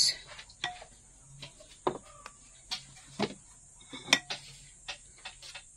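Knife cutting ham into cubes, the blade knocking sharply on the board at irregular intervals, roughly once a second.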